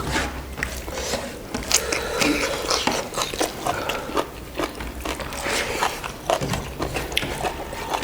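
Mouth sounds of people chewing and biting buffalo innards: many short, irregular clicks and smacks.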